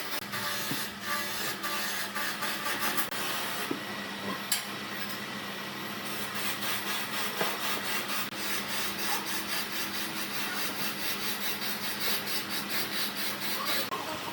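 Wood being worked by hand in quick, repeated scraping strokes, over a faint steady hum.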